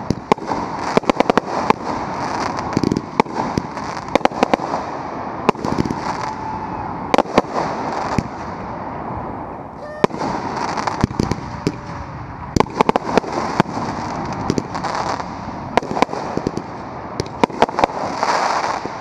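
Consumer firework cake firing a fast barrage of launch thumps and star bursts over constant crackling. The shots thin out briefly about halfway through, then come thick and fast again near the end as aerial shells and mines join in.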